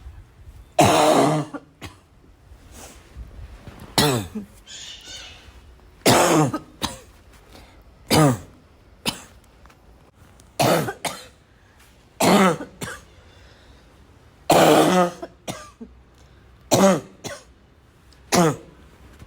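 A person coughing over and over, about ten harsh coughs spaced a second or two apart: a persistent coughing fit that won't stop.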